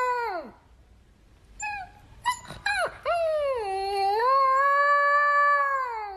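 A dog howling: a long call that falls away at the start, a few short yips about two seconds in, then a second long howl that dips, rises, holds and drops off near the end.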